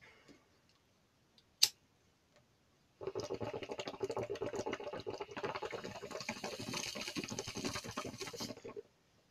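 Water bubbling in a homemade bottle bong as smoke is drawn through it: a dense, fast gurgle that starts about three seconds in, holds steady for about five and a half seconds, then stops abruptly. A single sharp click comes about a second and a half in.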